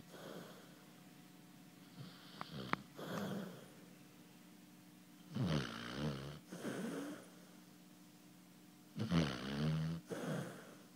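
Basset hound snoring in her sleep: three snores about three and a half seconds apart, the later two louder, each in two parts.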